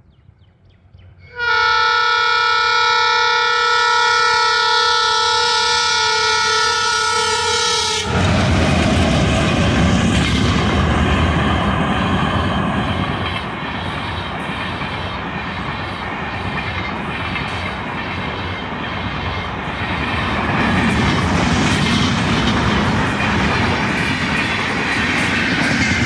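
Twin WDG3A diesel locomotives sounding one long multi-tone horn blast of about six seconds as they approach, ending abruptly about eight seconds in as the locomotives draw level. Then the loud rush of the locomotives and a long rake of passenger coaches passing at speed, with rapid clatter of wheels over the rail joints, dropping a little in level after about thirteen seconds.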